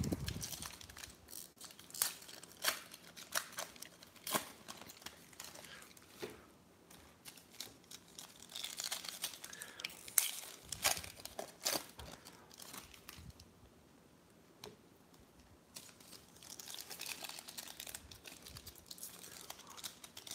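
Foil wrappers of Diamond Kings baseball card packs being torn open and crinkled by hand, with many scattered sharp snaps and two longer spells of crinkling, about 8 and 16 seconds in. A dull thump right at the start.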